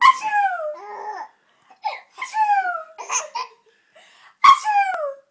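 A toddler laughing in three high-pitched squealing bursts, each falling in pitch, with softer giggles between them.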